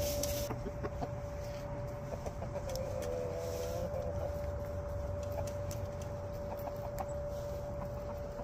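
Chickens clucking softly, with one drawn-out wavering call about three seconds in, over a steady hum and a low rumble.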